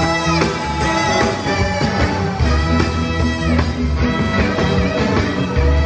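A live band playing loud rock music: a horn section of saxophone, trombone and trumpet holding notes over electric guitar and drums.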